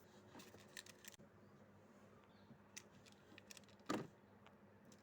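Faint scattered clicks and light rattling of plastic being handled, with one louder short clack just before four seconds in.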